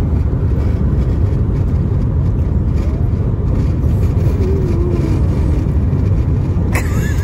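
Steady low rumble of car road and engine noise heard inside the cabin.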